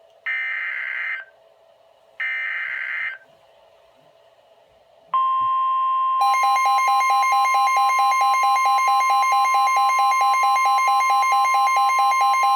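NOAA Weather Radio alert coming in: the last two of three short, shrill warbling SAME header data bursts, then about five seconds in the steady 1050 Hz warning alarm tone begins. About a second later a Midland WR-120EZ weather radio's own alarm starts beeping rapidly over the tone, the radio activating for the new severe thunderstorm warning.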